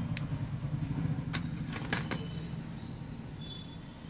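A few small, sharp clicks of smartphone parts and flex cables being handled, over a steady low hum.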